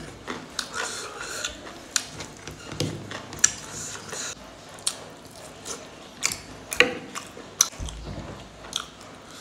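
Close-miked eating sounds: irregular wet clicks and smacks of chewing and lip-smacking as a man eats rice and curry by hand, with a dull low thud a little after halfway.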